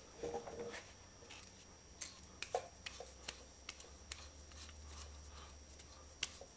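Hands handling and turning a gold Öhlins fork part, making faint scattered clicks and rubbing, over a faint low hum.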